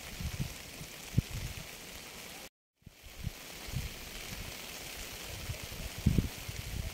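Steady rain hiss with irregular low thumps under it. It breaks off to complete silence for a split second about two and a half seconds in.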